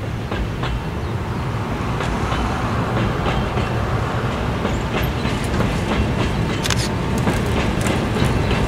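Oigawa Railway rack-and-pinion (Abt system) passenger train climbing the grade: a steady low rumble that grows louder as the train approaches. From about two seconds in there are sharp wheel clicks over rail joints, coming more often near the end.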